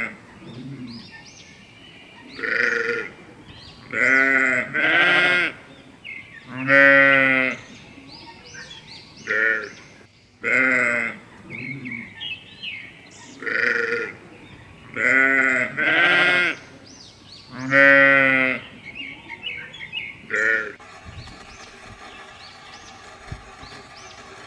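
Sheep bleating: about eleven separate bleats, each lasting up to a second, some with a wavering, quavering pitch, spaced one to three seconds apart. They stop about three-quarters of the way in.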